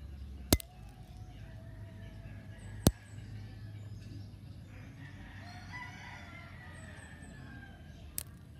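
Cracker plant (Ruellia tuberosa) seed pods bursting open in water with three sharp cracks, about half a second in, near three seconds and near the end; wetting splits the pods and flings out the seeds. A rooster crows in the background midway.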